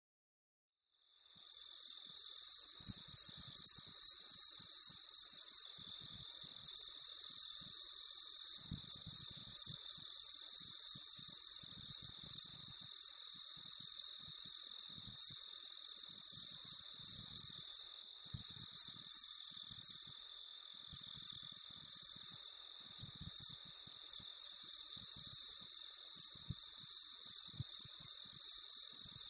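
Crickets chirping: one loud, high chirp repeating evenly about two to three times a second over a fainter, steady background chorus. It fades in about a second in.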